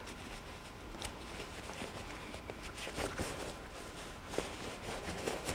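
Faint rustling of cloth being handled, with a few soft taps, as a hand reaches into a bag's sewn lining to pull out a tab.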